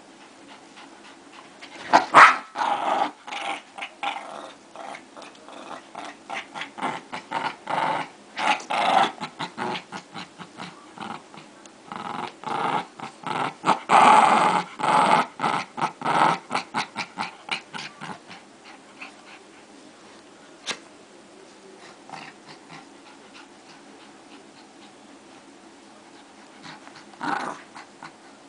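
Small dogs growling in a tug-of-war over a rope toy: a rapid string of short growls, loudest about two seconds in and again around the middle. The growls thin out to a few single ones in the last third.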